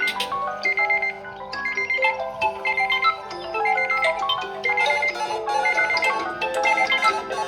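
Electronic ringtone or alarm melody of marimba-like notes, with a short high beep repeating about once a second.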